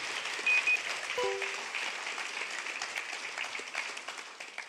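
Audience applause, a dense patter of clapping that fades out near the end. About half a second in come two short high beeps, then a click with a few brief lower tones, the sound effects of a subscribe-button animation.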